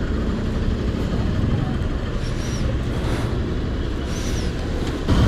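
Steady low rumble of wind and engine while riding a motorcycle, with two faint, short high chirps partway through.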